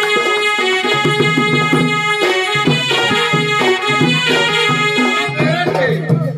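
Odia folk music for a Danda Nacha dance, with a reedy wind or harmonium-like melody over a barrel drum. A voice comes in near the end.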